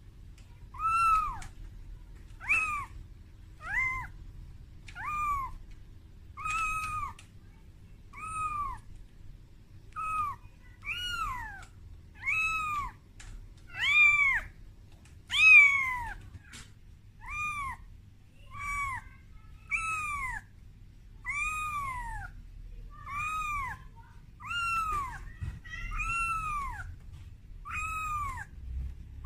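Very young calico kitten crying over and over, short high-pitched meows about one a second, each rising and then falling in pitch. It is a distress call for its mother, made in fear at being out of its room for the first time.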